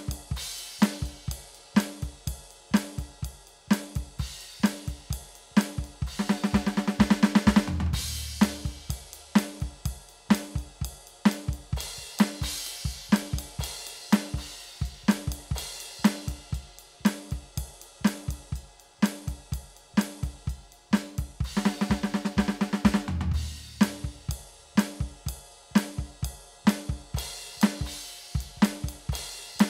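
Electronic drum kit played in a steady groove of kick, snare, hi-hat and cymbal hits. Two fast fills of rapid, even strokes come about 7 seconds in and again about 22 seconds in, each ending on a deep accented hit.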